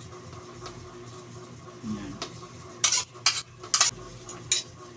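Metal spoon scraping and tapping against a plate and a plastic tub as shredded chicken is pushed off onto macaroni, with four or five sharp clinks in the second half.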